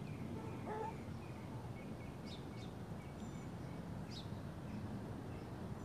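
Outdoor ambience: a steady low rumble with a few short bird chirps, several of them falling quickly in pitch, around the middle.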